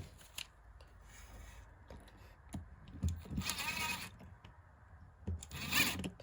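Hook-and-loop Velcro on a nylon watch strap being pulled apart twice, two short rasping tears, with light handling knocks between them.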